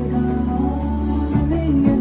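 Song playing through a MarQ 120 W Bluetooth soundbar during a sound-quality test, with heavy sustained bass notes.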